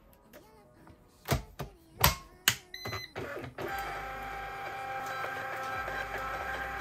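Munbyn thermal label printer: a few sharp clicks as label paper is loaded, a short electronic beep, then from about three and a half seconds in a steady mechanical whir with a held whine as the printer feeds out and prints shipping labels.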